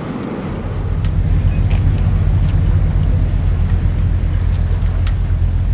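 Low, steady engine rumble of a boat, swelling up about half a second in and then holding.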